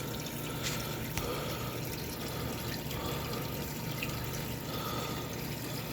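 Water running and trickling steadily in a turtle tank, a continuous splashing wash.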